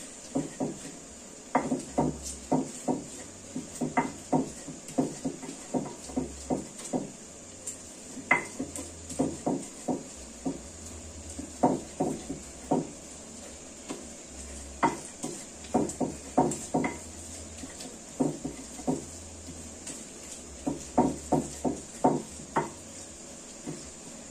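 Ulekan pestle knocking and grinding green chillies and tomatoes in a cobek mortar: runs of quick knocks with short pauses between.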